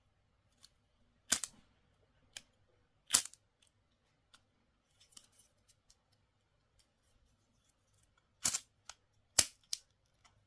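Zippo lighter being worked: several sharp metallic clicks and strikes, one about a second in, one about three seconds in and a cluster near the end, with fainter ticks between. The lighter does not catch.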